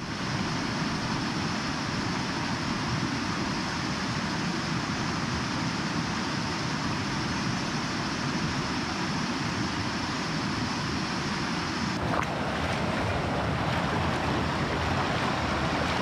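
Steady rush of a rocky mountain river flowing over stones. About twelve seconds in the sound changes abruptly, becoming brighter and closer to the water.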